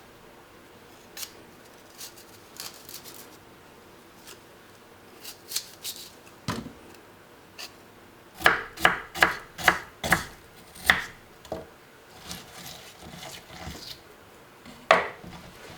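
Handling sounds: rubbing and scattered sharp clicks and taps, with a quick run of clicks about halfway through and one more sharp tap near the end.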